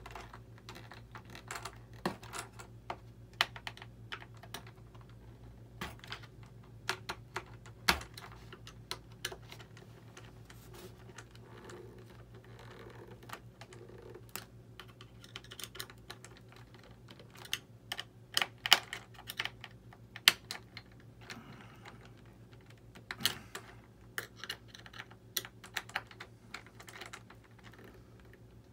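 Irregular clicks and taps of small plastic parts and tools being handled while an RC model jet's landing gear and parts are fitted back together, over a steady low hum.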